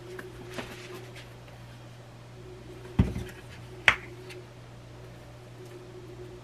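Seasoning jars being handled at a kitchen counter: two sharp knocks less than a second apart about three seconds in, the first with a dull thud, over a steady low hum.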